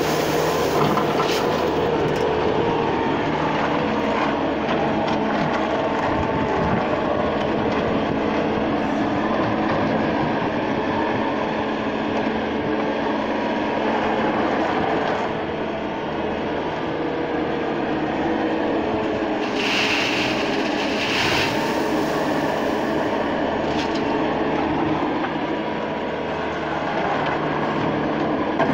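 Loader engine running steadily at a constant pitch, with gravel pouring off the bucket at the start and two short noisy bursts about twenty seconds in.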